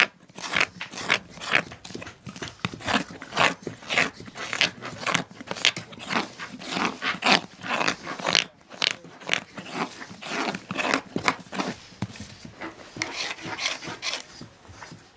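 Curved carving knife slicing shavings from the inside of a wooden spoon bowl: quick, crisp cuts about two to three a second.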